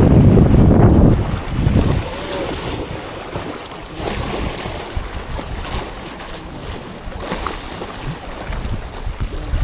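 Wind buffeting the microphone, heaviest for the first second or two, then easing over a steady wash of sea and waves.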